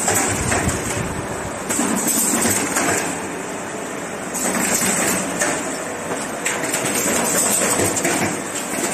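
Automatic corrugated box partition assembly machine running: a continuous mechanical clatter of many small knocks, rising and falling in loudness every few seconds.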